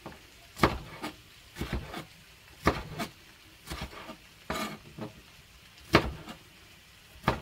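Chef's knife slicing long green chili peppers on a cutting board, the blade knocking on the board in a slow, uneven series of single cuts, about one or two a second.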